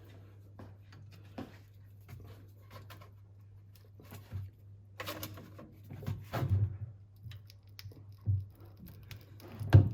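Hand tools working at a stuck differential cover: scattered light metallic clicks, then several heavier knocks from about halfway through and one near the end. A steady low hum runs underneath.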